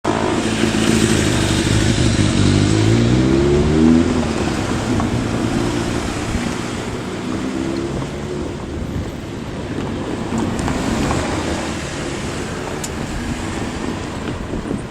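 DE10 diesel-hydraulic locomotive's engine running loud under a steady rumble, revving up with a rising pitch about two seconds in and again briefly around seven seconds, as it throttles up during shunting.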